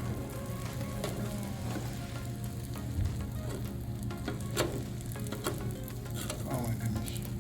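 Beaten eggs sizzling on a Blackstone flat-top griddle, with a few sharp taps and scrapes of a spatula on the steel cooktop.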